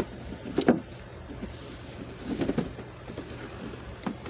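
Cardboard action-figure box being handled and turned over by hand: a few knocks and scuffs, the loudest about a second in, a run of rubbing and tapping in the middle, and one more knock near the end.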